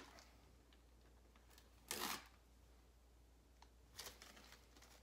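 Thin plastic sheet being sliced by the freshly sharpened bit of a True Temper Kelly Works Flint Edge double-bit axe in a sharpness test: one short cut about two seconds in, and a fainter one about four seconds in.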